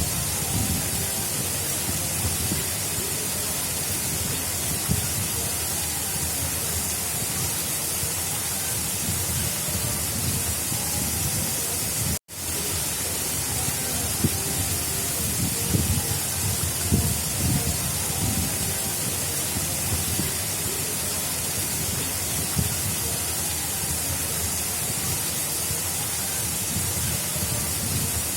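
Steady rush of water flowing along an artificial river, with a low rumble swelling and easing under a bright hiss. The sound cuts out for an instant about twelve seconds in and resumes.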